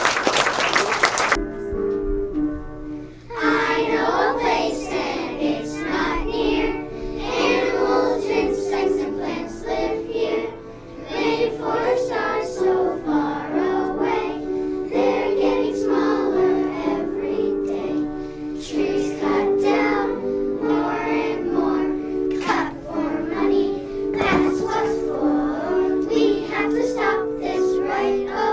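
Brief applause, then a group of children singing a song over a steady instrumental accompaniment.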